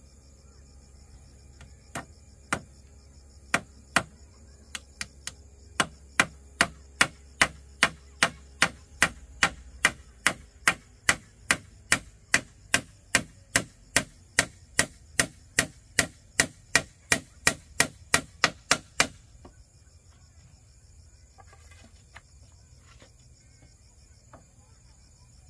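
Sharp striking blows: a few scattered strikes, then a steady run of about two a second that stops abruptly well before the end. A steady high insect drone runs underneath.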